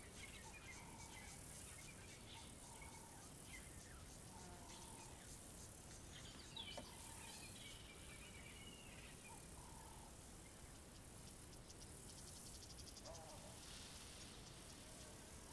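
Faint savanna ambience: insects buzzing steadily, with a rapid insect trill near the end, over short bird calls repeated about once a second and scattered higher bird chirps.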